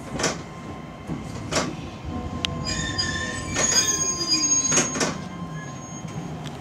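Hakone Tozan Railway Allegra (3000 series) electric train drawing to a stop at a switchback dead end: a high-pitched squeal from about the middle until the train halts, a tone falling in pitch as it slows, and several clanks.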